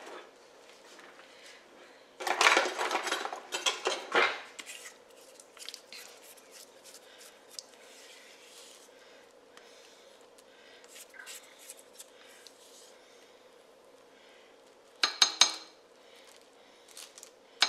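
Metal kitchen utensils clattering and clinking: a loud rattling burst about two seconds in and a shorter one near the end, with faint scattered knocks and scrapes between.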